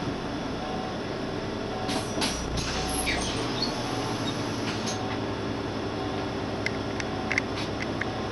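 Inside a Solaris Urbino 8,9 LE city bus while it drives: steady engine and road rumble, with short rattles and clicks from the cabin about two to three seconds in and again near the end.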